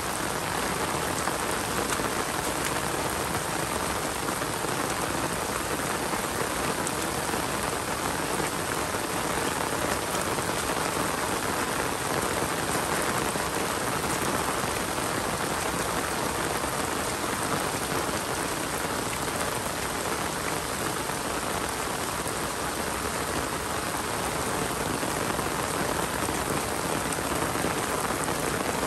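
Rain falling steadily on surfaces, an even hiss that holds level throughout.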